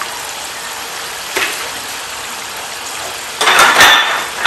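Steady frying hiss from food cooking in hot oil. A short knock comes about a second and a half in, and near the end there is a louder burst of rustling, clicking sizzle as the frying pan's contents are stirred with a wooden chopstick.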